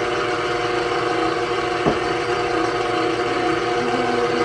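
KitchenAid stand mixer running steadily, its flat beater working flour into cookie-bar dough, with a steady motor hum and one light click about two seconds in.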